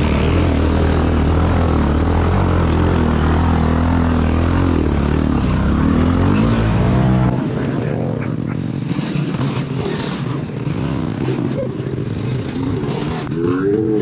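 Off-road vehicle engine running loud and steady, its pitch swinging up and down with the throttle; about seven seconds in the deep engine note drops away, leaving a lower, rougher rumble.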